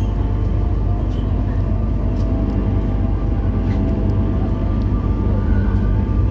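MTR South Island Line S-Train pulling away from the platform, its traction motors giving a steady multi-tone whine over a low rumble as the train gathers speed.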